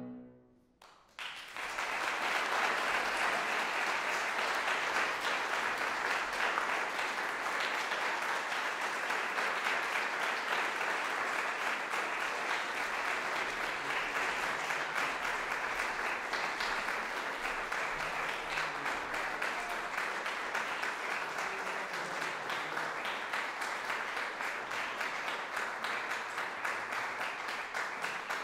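Audience applause: after a second of near silence it breaks out and goes on steadily.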